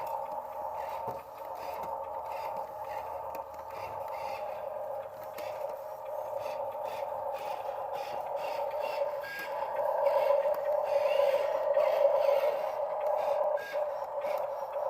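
Small electric motor of an RC dump truck whining steadily, growing louder about ten seconds in, with small clicks and scrapes.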